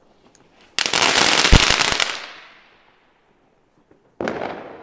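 Fireworks going off: a dense, rapid crackle of small bangs lasting just over a second and then fading, followed near the end by a second sudden burst that dies away.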